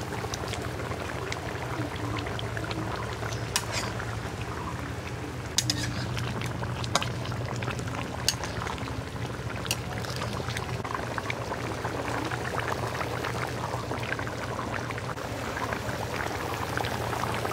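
Mutton curry boiling vigorously in an open metal karahi, a steady bubbling and spluttering, with occasional sharp pops.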